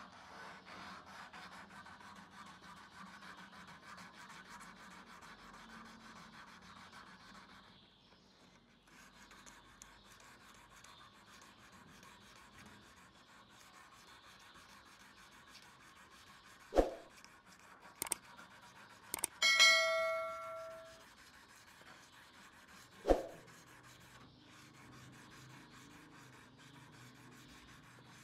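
Sandpaper rubbed by hand along a rusty steel knife blade to take off the rust, a faint scratchy hiss of strokes. About two-thirds of the way through come a few sharp metallic knocks and one clear metal ding that rings for about a second and a half.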